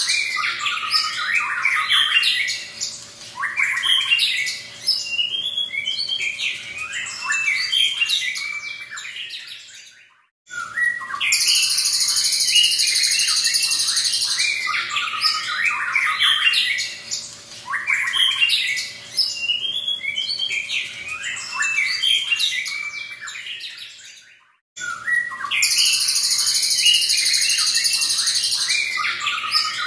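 A caged white-rumped shama singing a loud, varied song of rapid whistles, trills and chatters, packed with mimicked phrases. Each stretch opens with a harsh rasping note, and the song breaks off briefly twice, about a third of the way in and near the end.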